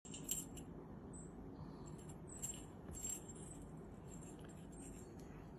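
Faint light rattling and clicking from a dangling wand toy as marmosets grab and bat at it, over a steady low hum.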